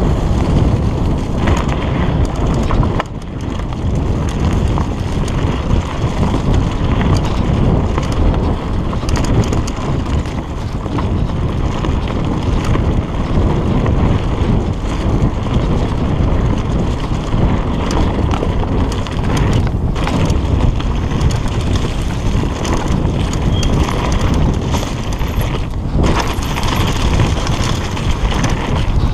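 A mountain bike riding fast down a dirt trail: tyres rumbling over the ground with wind buffeting the microphone, and the bike rattling and knocking on the bumps.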